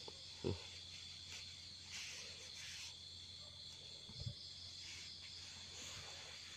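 Steady high chirring of night insects, with a few soft thumps and scrapes from a hand digging in the soil, one about half a second in and another about four seconds in.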